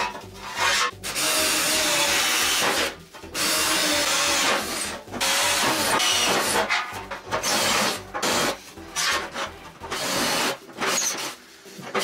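Handheld power drill boring through steel chequer plate in repeated bursts of a second or two, with short pauses between, over background music with a steady beat.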